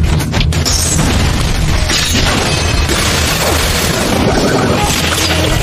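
Anime fight sound effects: heavy booms and crashing impacts over dramatic background music.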